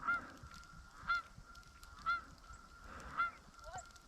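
Goose honking, four honks about a second apart.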